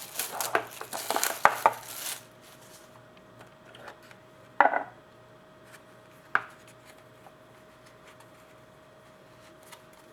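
Trading cards and their packaging handled on a tabletop: about two seconds of busy clicking, tapping and rustling, then two single knocks a couple of seconds apart over a faint steady hum.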